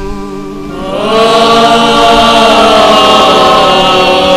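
A choir and congregation singing a liturgical response in chant style. The voices come in about a second in and hold loud and full.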